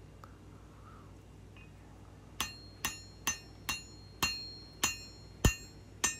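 Hand hammer striking a hot steel knife blade on an anvil, drawing down the bevel: about eight blows, roughly two a second, each with a short metallic ring, starting a little over two seconds in.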